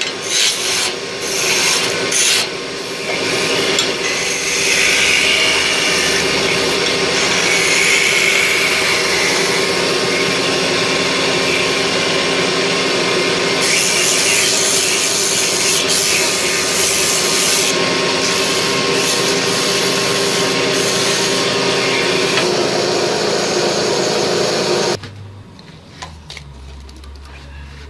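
Wood lathe spinning a wooden spindle while a hand-held turning tool cuts and scrapes along it: a steady, loud rasping. It stops abruptly about 25 seconds in, leaving a much quieter low hum.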